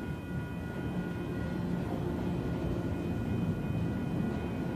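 Freight train of autorack cars rolling past at steady speed: a continuous rumble of wheels on rail, with steady high tones above it.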